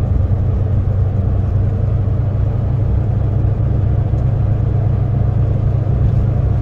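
Semi truck's diesel engine running steadily under load, a continuous low drone heard from inside the cab.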